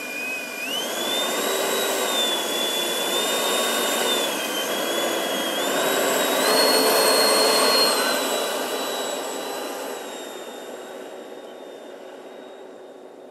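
Schübeler 120 mm electric ducted fans of a large scale model airliner whining as it taxis, the pitch stepping up and down with the throttle. The whine is loudest about two-thirds of the way through, then fades as the model moves away.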